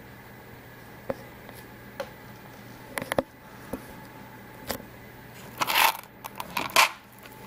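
Steel ball bearings rolling and rattling in a small plastic tub as it is handled and tilted. There are a few light clicks first, then two louder rattles near the end.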